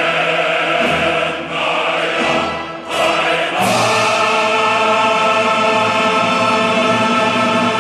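Background choral music: a choir singing sustained chords, with a new chord entering about three and a half seconds in and held.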